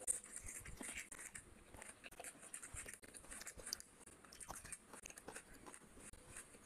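Close-miked mouth chewing a handful of rice and fish curry, with many small, irregular wet clicks and crunches.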